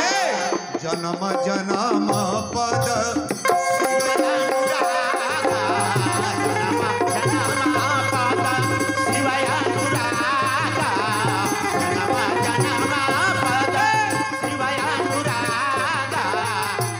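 Indian devotional music: a man singing with wavering ornaments over a harmonium's sustained chords and hand percussion.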